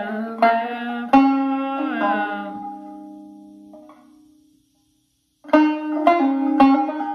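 Five-string banjo in gDGCD (sawmill) tuning playing a phrase of a few plucked notes that ring out and fade to silence about four and a half seconds in; about a second later the picking starts again with a quicker run of notes.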